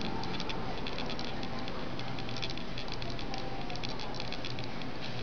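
Steady low hum of a supermarket's refrigerated produce aisle, with a rapid, irregular patter of light clicks over it.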